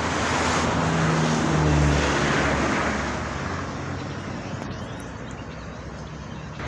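A car driving past on the road, its engine and tyre noise swelling for about two seconds and then fading away.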